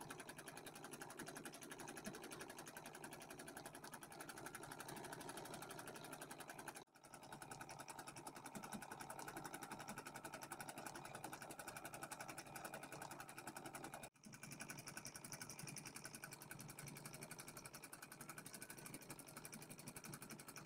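Embroidery machine stitching out a design at low speed: a faint, steady, rapid clatter of the needle, breaking off briefly twice.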